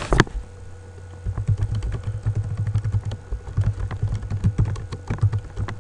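Typing on a computer keyboard: a rapid run of keystrokes starting about a second in, entering an email address.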